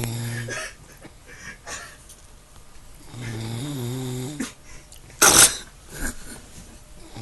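Dog snoring loudly: long, droning snores with a wavering pitch about every four seconds, one trailing off just after the start and another at about three seconds. A brief, loud burst of noise comes a little after five seconds, the loudest sound here.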